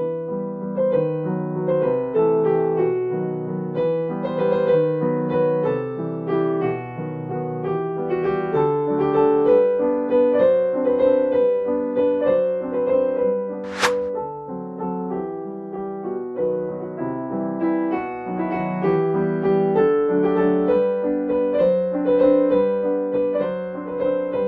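Background piano music: a steady run of light keyboard notes. There is one short, sharp sound about halfway through.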